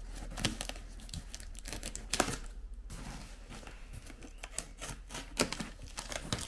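Scissors snipping through packing tape on a cardboard box, with tape tearing and cardboard crackling in irregular sharp snips; the loudest snap comes about two seconds in.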